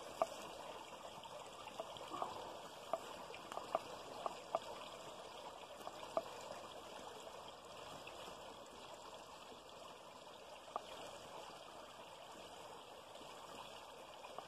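Faint steady rush of running water, with a scattering of light ticks and taps, mostly in the first six seconds, as a cast net and its catch are handled on grass.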